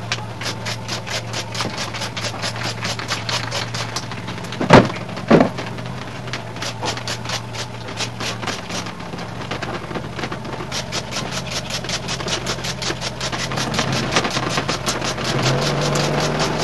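Handheld trigger spray bottle pumped over and over in an even rhythm, several squirts a second, spraying water into a split air conditioner's indoor unit to wash the blower fan. Two louder knocks come about five seconds in, over a low steady hum.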